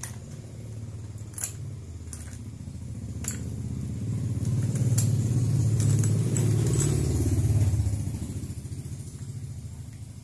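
A vehicle engine running close by, growing louder over several seconds and then fading away. Over it come a few sharp metallic clicks of engine parts being handled on a crankcase.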